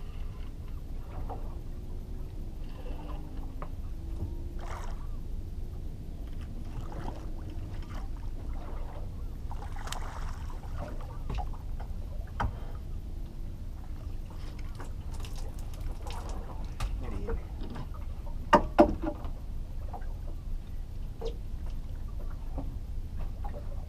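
Water lapping and sloshing against a small boat's hull over a steady low rumble, with scattered knocks and clatters of gear in the boat and two loud thumps about three-quarters of the way through.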